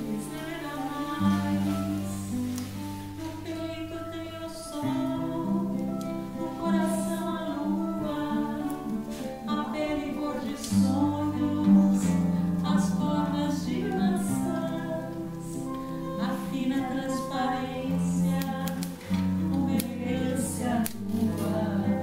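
Live acoustic guitar (violão) playing a song, with voices singing along.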